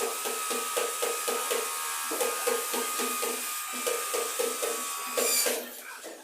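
A handheld electric power tool's motor running steadily with a constant whine for about five and a half seconds. Near the end it briefly gets louder, then is released and spins down with a falling pitch.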